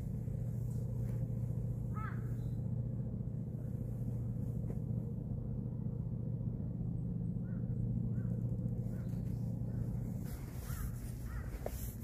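A steady low engine hum, with a few short bird calls over it.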